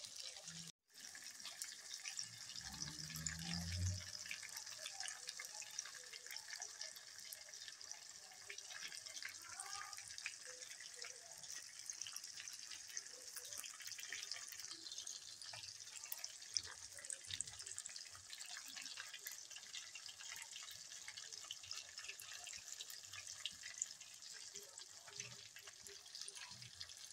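Whole black pomfret frying in hot oil in an aluminium kadhai on a lowered flame: a steady sizzle with a constant patter of fine crackles. A brief low rumble about three seconds in.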